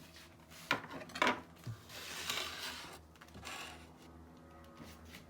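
Kitchen handling sounds: two sharp knocks about a second in, then a couple of seconds of scraping and rubbing as the freshly cut grilled cheese sandwich and a knife are handled.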